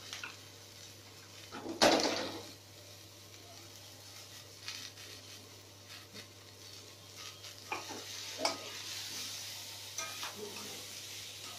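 Vegetables sizzling in a hot wok as frozen green peas are scattered in, with one loud sudden clatter about two seconds in. The sizzle grows stronger in the second half, and a metal spatula clinks against the wok near the end.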